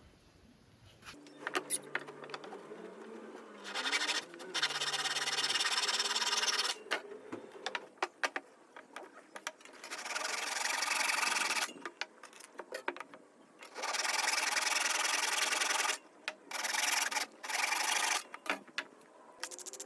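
Wood being sanded in long spells of abrasive rubbing, each two to three seconds long. Between them come shorter scrapes and sharp clicks and knocks.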